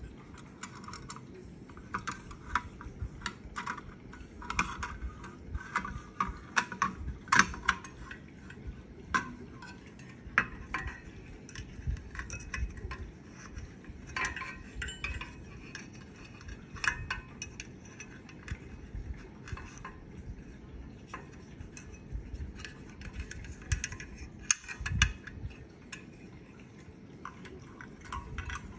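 Stainless steel pot-support arms and legs of a folding butane camping stove being swung open and set in place by hand: irregular metal clinks and clicks, the sharpest about seven seconds in and again around twenty-five seconds.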